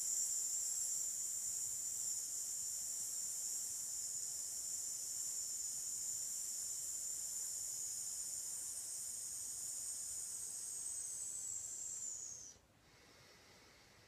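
A woman's long, slow exhale hissed out through the teeth as a steady 'sss' sound (the S breathing exercise), held for about twelve seconds and dipping slightly in pitch just before it stops.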